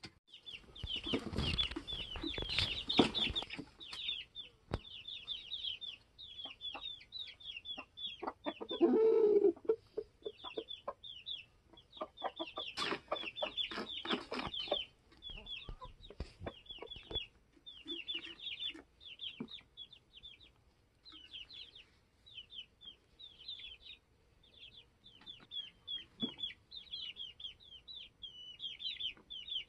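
Young chickens peeping over and over in short, high, falling calls, with clucking from the flock around them. A brief louder, lower sound stands out about nine seconds in.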